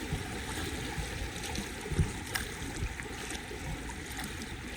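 River water rushing and gurgling around a whitewater kayak, with a few short splashes or knocks from paddle strokes, the first about two seconds in.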